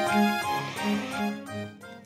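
Background music: a light instrumental tune of short notes over a repeating bass line, breaking off at the very end.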